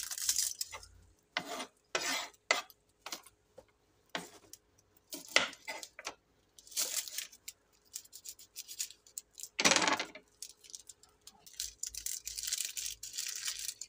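Kitchen knife clicking and scraping irregularly on a wooden cutting board as a shallot is trimmed and peeled, with one louder knock about ten seconds in and a stretch of rustling from the dry papery skin near the end.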